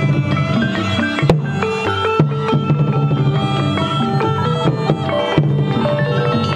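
Cambodian pinpeat ensemble accompanying a shadow puppet dance: held reedy wind notes over a running melodic line and drum strokes, with one sharp loud drum strike about a second in and another about five seconds in.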